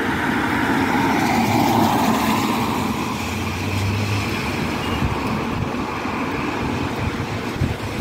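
Motor vehicle noise with tyre hiss on a wet road, swelling to its loudest about two seconds in and then easing as a vehicle passes.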